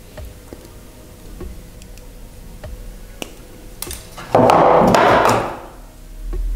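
Light clicks and taps of flat-nose pliers and thin copper wire as the wire is wrapped around a copper earring frame, with a loud rustling noise lasting about a second just past the middle and a low thump near the end.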